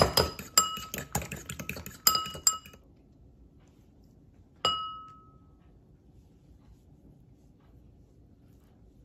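A fork beating an egg in a ceramic bowl: quick, ringing clinks of metal on the bowl that stop under three seconds in. One louder ringing clink against the bowl about four and a half seconds in.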